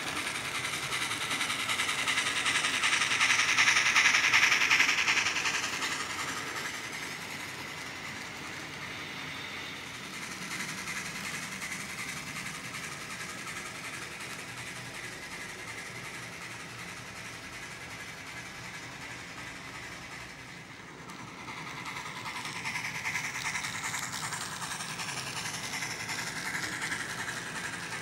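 N scale model trains running: small locomotive motors whirring and wheels rolling over the track. The sound swells as a train passes close about four seconds in, and again a little after twenty seconds.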